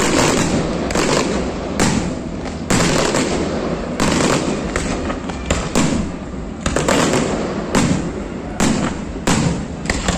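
Fireworks display: more than a dozen loud shell bursts in quick succession, about one bang a second, with a continuous crackling rumble between them.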